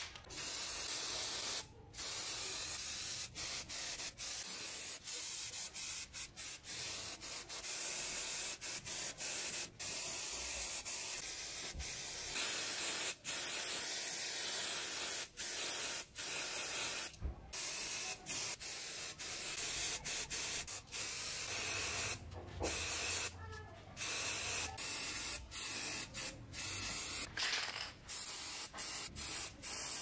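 Spray paint hissing in long bursts with many short breaks as the spraying stops and starts.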